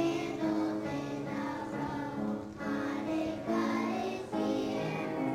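Children's choir singing a song in phrases of held notes, with piano accompaniment.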